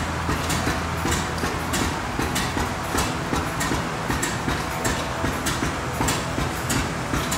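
Several antique stationary gas engines running together, giving an uneven clatter of overlapping pops and clicks over a steady mechanical rumble.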